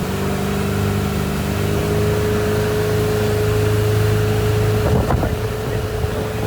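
Motorboat engine running steadily under way, its pitch rising slightly in the first two seconds, over the rush of water and wind. A few short knocks come about five seconds in.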